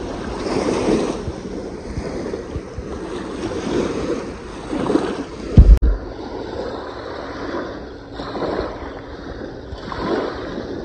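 Small lake waves lapping and washing onto a sandy, pebbly shore, rising and falling in repeated surges. About five and a half seconds in, a loud gust of wind hits the microphone.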